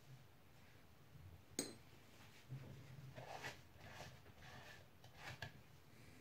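A sharp click about one and a half seconds in, then soft rubbing and rustling as a paper towel wipes wet paint off a 3D-printed plastic helmet.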